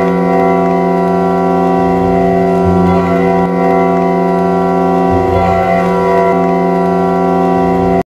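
Ice hockey goal horn (the Team Sweden 2022 horn) sounding one long, loud, steady chord that cuts off abruptly at the end.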